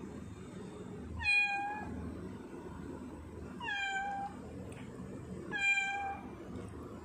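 Tortoiseshell cat meowing three times, about two seconds apart, each meow short and dropping slightly in pitch.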